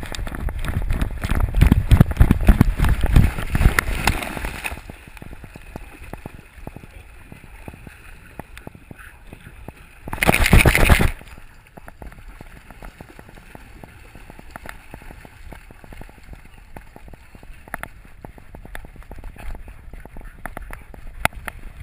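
Water sloshing and splashing around a dog-mounted camera as the dog swims in a river. It is loud for the first four seconds or so, with another short loud splash about ten seconds in.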